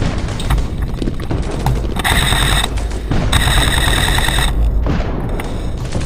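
Airsoft electric gun firing two full-auto bursts, a short one about two seconds in and a longer one just after three seconds, over a constant low rumble and scattered clicks.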